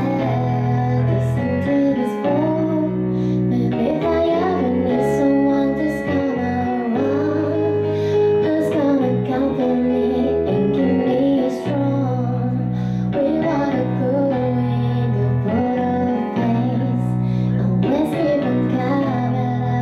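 A woman singing a slow pop ballad into a microphone over instrumental accompaniment.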